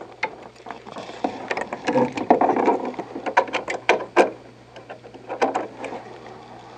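Small clicks, knocks and scraping of plastic and metal parts as a dehumidifier's condensate level switch and its bracket are worked into place against the compressor mounting plate, with the densest scraping about two seconds in. A steady low hum runs underneath.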